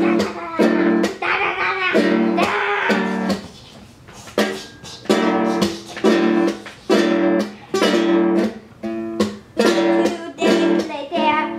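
Plucked string instrument strummed by a child as music for a puppet show: the same chord struck over and over, about two strums a second, with a short pause about three and a half seconds in.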